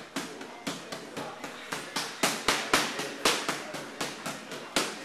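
Boxing gloves smacking focus mitts in quick combinations: sharp slaps, about two to four a second, some in tight clusters, with a slight room echo.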